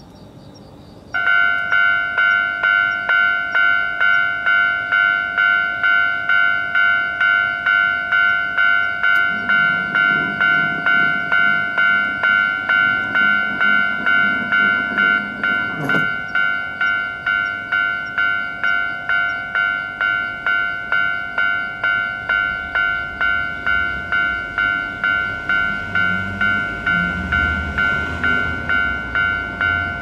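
Japanese railroad crossing warning bell starts about a second in and rings in an even clanging pulse of about two strikes a second, dropping a little in level about fifteen seconds in once the barrier arm is down. A low rumble builds underneath near the end.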